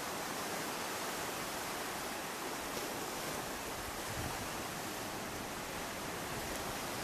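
Steady, even rush of sea surf, with no single wave break standing out.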